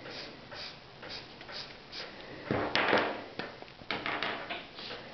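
Felt-tip marker scratching on paper as a hand shades in an area with quick back-and-forth strokes, about three a second, with a louder stretch of scribbling about halfway through.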